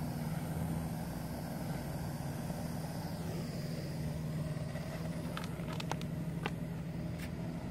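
Handheld gas torch flame heating a glass test tube: a steady roar with a low hum, and a few faint ticks about two-thirds of the way in.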